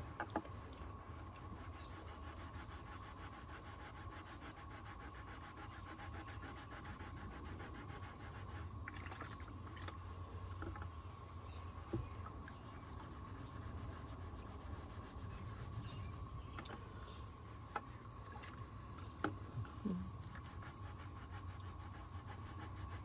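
Seat-belt webbing being scrubbed with a scrubby sponge in a bucket of hot soapy water: faint rubbing and sloshing, with a few small knocks, over a steady low hum.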